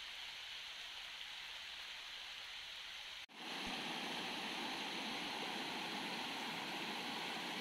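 A steady soft rushing, then, after a sudden cut about three seconds in, a small mountain stream splashing over rocks, louder and fuller.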